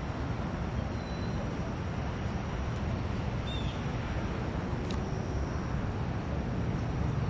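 Steady low outdoor rumble, like distant traffic, with a few faint short chirps and a single brief click about five seconds in.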